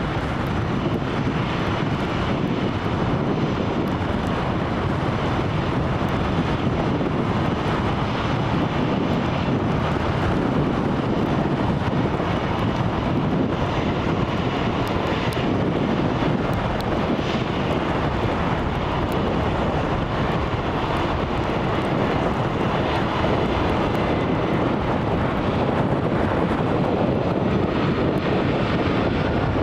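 Jet engines of an arriving easyJet Airbus A320neo, a steady, loud rushing noise.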